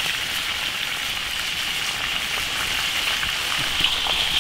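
A bighead carp head frying in hot oil in a wok, the oil sizzling with a steady crackling hiss.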